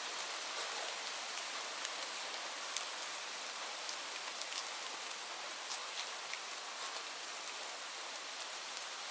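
Steady rain falling on leaves: a constant hiss of rainfall with many separate drops tapping sharply on the foliage.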